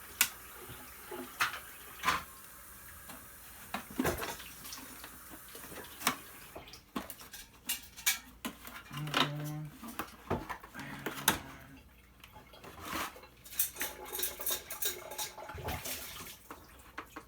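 Scattered metallic clinks, taps and clatters of a screwdriver and loose sheet-metal parts as a dryer's door panel is worked apart, with two short low hums about 9 and 11 seconds in.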